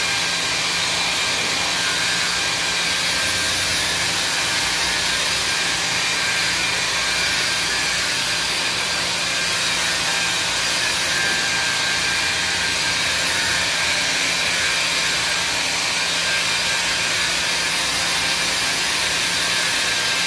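A steady blowing hiss from a motor-driven blower, with a low steady hum underneath.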